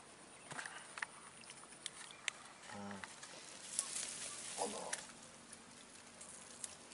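Faint rustling and scattered small clicks from hands working through grass and weeds while taking hold of a caught fish. Two short vocal sounds come about three and four and a half seconds in.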